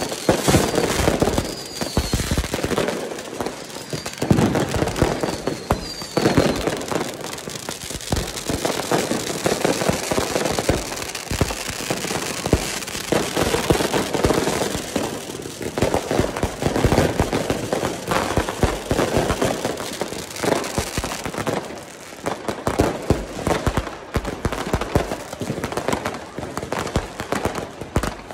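Dense barrage of New Year's firecrackers and fireworks going off in the street, rapid bangs and crackling throughout, with a few short whistles about one to three seconds in.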